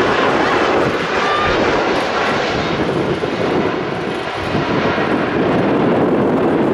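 Jet engines of a Boeing 767-300 freighter running loud and steady, a dense rushing noise with a few faint brief whining glides in the first couple of seconds.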